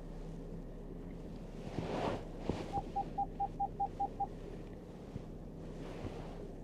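Range Rover Sport Hybrid idling with a steady low hum. Near the middle comes a quick run of eight short electronic beeps, about five a second.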